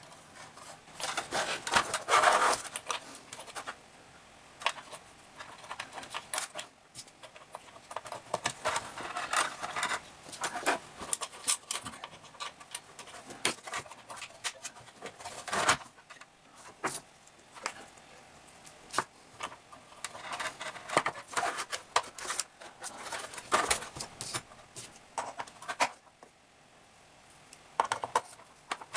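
Irregular clicking, scraping and rattling of a metal spring battery contact being forced into its slot in a plastic battery compartment. The spring's base is too big for the slot, so it has to be worked in bit by bit.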